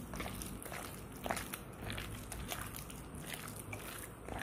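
Malai (clotted cream) being beaten in a bowl: irregular soft squishing and clicking strokes, a few a second, as the cream is worked toward a smooth, creamy paste for making desi ghee.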